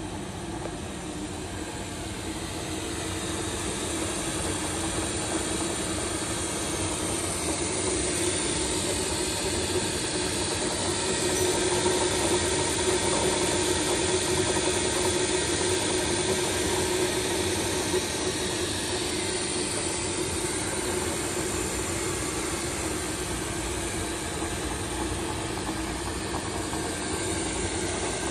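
Studer tool grinding machine running under power, its electric motor and belt-driven spindles giving a steady hum over an even hiss.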